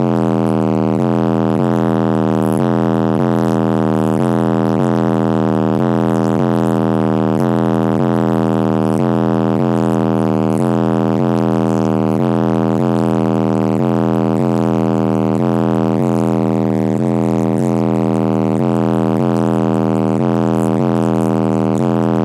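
Bass-heavy music played very loud through a car stereo's two 12-inch subwoofers, driven by a 3000-watt Kenwood amplifier. A deep droning bass line runs under a steady beat of about two hits a second.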